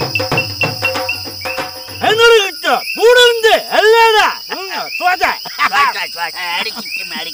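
Steady high cricket trill, with the end of a drum-and-wood-block music beat under it for the first two seconds. Then comes a run of loud calls, each rising and falling in pitch, about two a second.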